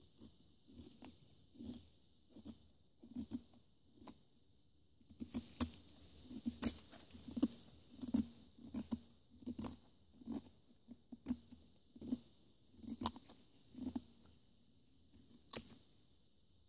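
Gerber Bear Grylls Ultimate survival knife blade carving shavings down a wooden stick: a steady run of short scraping strokes, a little more than one a second, louder from about five seconds in.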